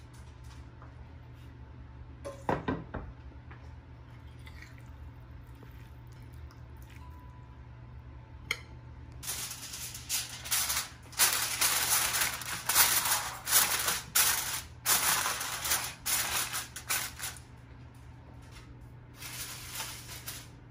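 A seasoning shaker shaken hard over a bowl of chopped chicken, rattling in quick bursts for about eight seconds from about nine seconds in, with a shorter bout near the end. A brief clatter of kitchenware comes about two seconds in.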